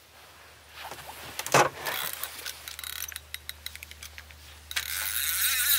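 Clicks and scrapes of fishing gear being handled, then, from near the end, a fast, continuous metallic ratcheting from a carp reel as a hooked fish takes line.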